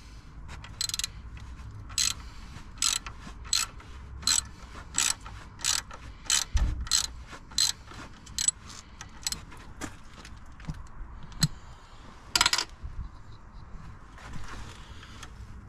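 Socket ratchet clicking in short repeated strokes, roughly one burst every two-thirds of a second, while undoing a stiff 12 mm alternator-bracket bolt.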